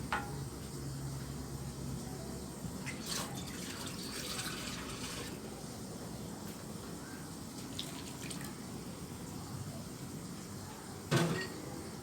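Water poured into a pot of curry gravy to thin it. The pour runs for about two seconds, starting about three seconds in, and there is a sharp knock against the pot near the end.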